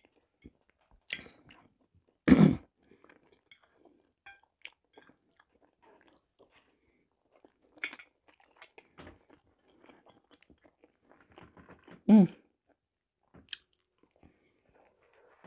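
Close-miked chewing and wet mouth sounds of a person eating boiled potato and herring, with scattered small clicks and smacks. Three brief louder sounds break in: about one second in, about two and a half seconds in and again about twelve seconds in.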